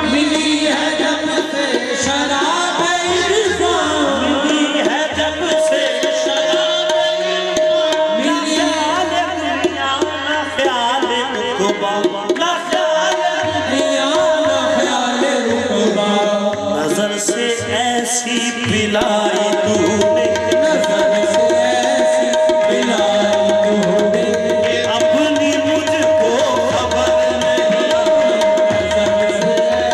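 Live qawwali music: harmonium and hand drums playing with male voices singing, the drums keeping a steady rhythm. Long steady held notes sound through much of the second half.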